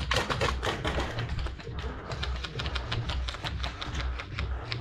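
Airsoft guns firing in close quarters: rapid clicking bursts, densest about the first half-second, then scattered shots and BB hits, over repeated low thuds.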